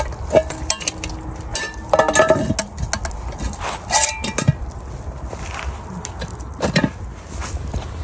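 Metal clinks and clanks from a cast iron Dutch oven and its wire bail handle as the pot is handled and set down on a bed of coals: a few separate knocks that ring briefly, the loudest about two and four seconds in.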